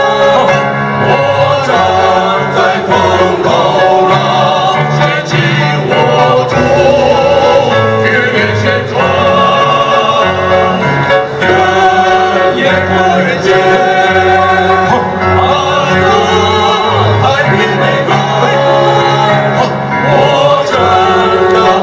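Male vocal group of five singing a song together in harmony through handheld microphones.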